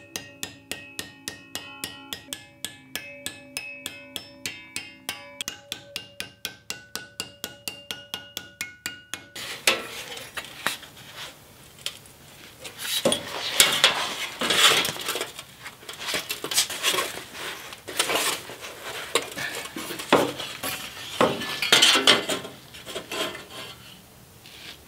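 A hammer striking sheet metal at a vise, about three blows a second, each blow ringing. About nine seconds in this gives way to louder, irregular clanking and scraping as a relief-cut strip of sheet metal is flexed and bent by hand.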